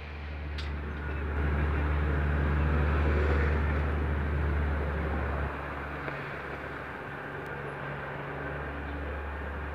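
Steady low drone of a heavy diesel engine on a road milling machine at work, louder for a few seconds and then dropping back about halfway through, over the noise of street traffic.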